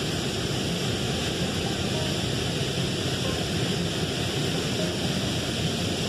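Waterfall and rapids, the water falling and rushing in a steady, unbroken noise.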